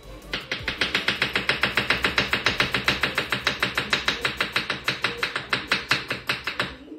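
Kitchen knife rapidly chopping an onion on a wooden chopping board: a fast, even run of about seven chops a second that stops near the end.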